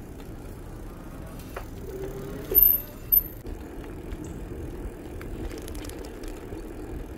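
Bicycle being ridden on a trail: a steady rolling rumble with light rattling. Two short, sharp high-pitched squeaks come about two and a half and three seconds in.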